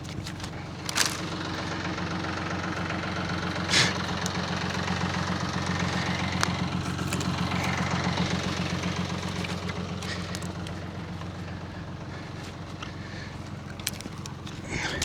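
Tractor engine running steadily, with a few short sharp cracks scattered through, the loudest about four seconds in.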